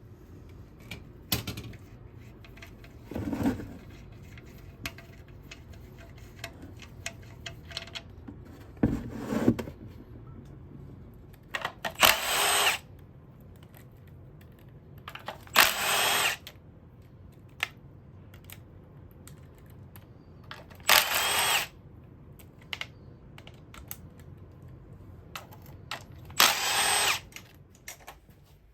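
Power tool run in four short bursts of about a second each, a few seconds apart, with light clinks and knocks of tools and parts between them, as bolts come out during the teardown of a VQ35DE engine.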